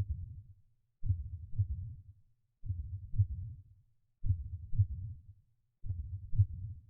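A heartbeat sound effect beating slowly and evenly: low double thumps about every one and a half seconds.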